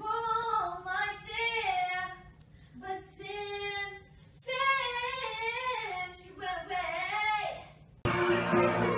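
A woman sings alone in a high voice, with long held notes that slide up and down, in three phrases separated by short breaths. About eight seconds in it cuts abruptly to louder music with talking.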